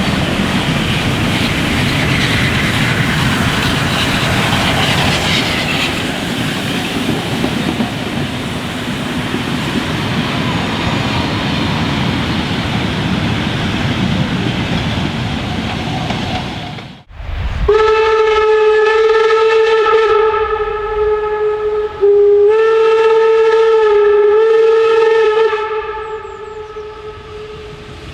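Steam locomotive running with a steady rumble and clatter. After a sudden cut about two-thirds in, its whistle blows one long, steady note that dips twice.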